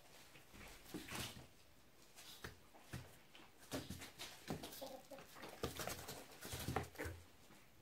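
Dry grass stems rustling and claws scratching on cardboard as kittens paw and scramble through them, a scatter of faint irregular scuffs and taps.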